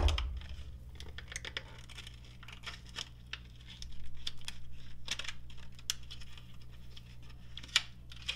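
Cardboard-backed plastic blister pack being torn and pried open by hand, with crinkling plastic and scattered clicks. A knock comes right at the start and a sharp click near the end.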